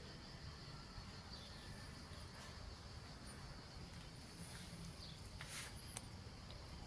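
Faint outdoor ambience: a steady high insect drone, with a few brief bird chirps about five to six seconds in.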